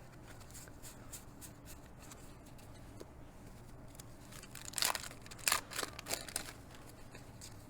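Baseball trading cards being flipped through by hand: faint slides and flicks of card stock against card stock, with a few brief louder rustles a little past the middle.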